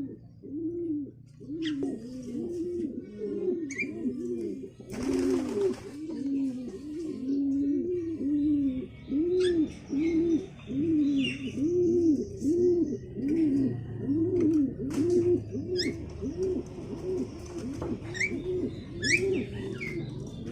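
Domestic pigeons cooing in a steady, unbroken run of rounded coos, about one and a half a second, with short high bird chirps scattered over it. A brief burst of rustling noise about five seconds in.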